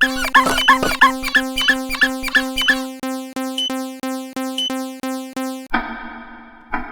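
Cartoon railroad crossing alarm: an electronic bell-like tone striking about three times a second, with playful sliding tones over it. It grows quieter in its second half, then gives way to a brief buzzier sound near the end and cuts off suddenly.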